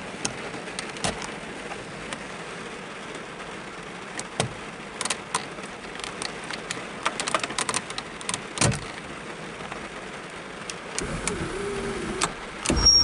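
Heavy rain falling steadily, with scattered sharp drips and taps. Near the end, an electric motor whines briefly for about a second and a half: the Volvo 940's sunroof motor running on its newly fitted switch.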